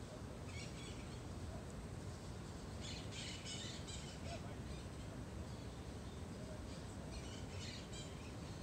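Birds chirping in three short bursts of quick, high calls, about half a second in, around three seconds in and near the end, over a steady low background rush.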